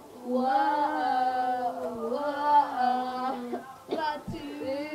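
A girl singing in long, drawn-out held notes: two sustained phrases that step slightly up and down in pitch.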